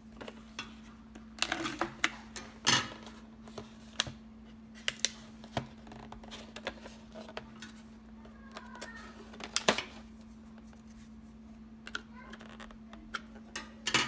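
Clear hard-plastic RAM packaging being handled and opened: irregular sharp clicks and crackles of the plastic case, over a steady low hum.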